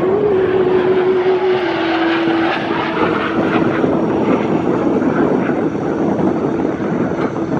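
F-16 Fighting Falcon fighter jets flying past: a loud, steady jet roar with a droning tone that drops slightly in pitch about two seconds in.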